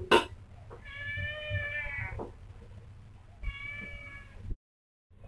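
A cat meowing twice: two drawn-out, fairly even-pitched calls about a second each, the first about a second in and the second past the middle, over a low background hum.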